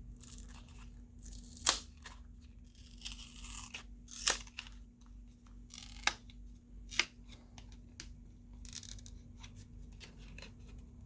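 A plastic opening pick slid around the edges of a Samsung Galaxy A20's glued back cover, scraping and tearing through the adhesive as the cover is pried loose, with a few sharp clicks along the way.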